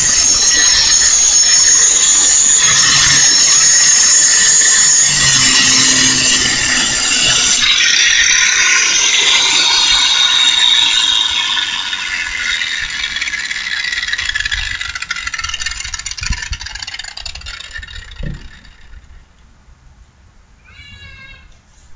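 A 4.5-inch Chicago heavy-duty angle grinder from Harbor Freight grinding metal, loud and harsh for about eleven seconds. It then comes off the work and the motor winds down, its pitch falling slowly until it has nearly stopped.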